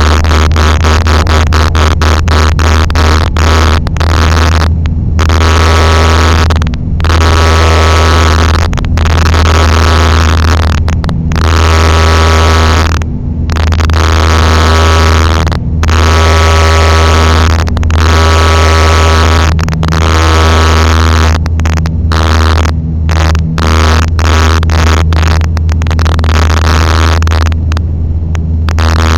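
Airliner taking off: a loud, continuous engine rumble with steady tones above it, so loud that it overloads the microphone and keeps breaking up.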